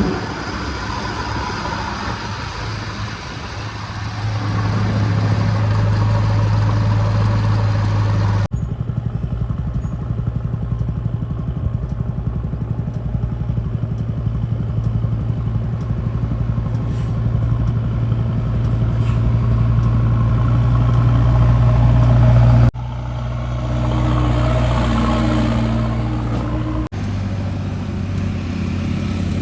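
Heavy diesel engine of a backhoe loader running hard under load, a steady low hum that slowly builds in level, with the sound changing abruptly three times.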